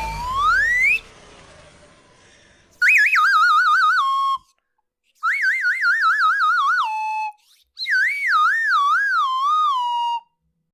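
Whistle-like sound effects: a pitch sliding upward in the first second, then three separate warbling tones, each wobbling up and down before settling on a lower held note and cutting off.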